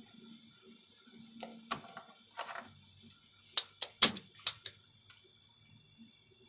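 A run of about eight sharp clicks and taps from small hand tools on the receiver's power-supply circuit board, with a short scrape among them, as the replacement capacitor is fitted. The loudest click comes about four seconds in.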